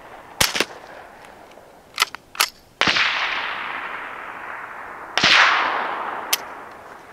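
Ruger 10/22 firing CCI Quiet 710 fps .22 LR: two quiet shots about two and a half seconds apart, each trailing off in a long fading hiss. Sharp metallic clicks of the action being worked by hand come between them, because the low-velocity rounds don't eject and cycle the semi-automatic action.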